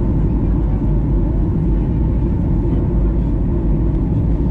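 Jet airliner cabin noise heard at a window seat in flight: a steady, deep rumble of the engines and rushing air, with a faint steady hum above it.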